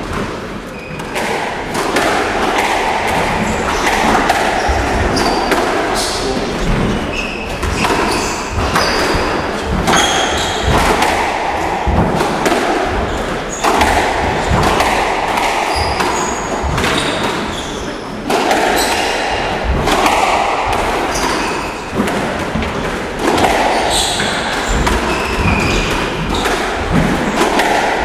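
Squash rally: the ball is struck by rackets and hits the court walls over and over at an irregular pace, with short high squeaks between the hits.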